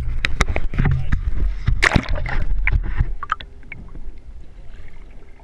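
Knocks, handling noise and splashing as a handheld action camera is dipped into the sea. About three seconds in, the sound drops and turns muffled once the camera is underwater.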